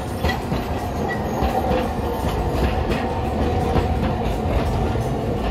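Hiroden streetcar rolling past, its wheels clicking repeatedly over rail joints and track crossings above a steady rumble.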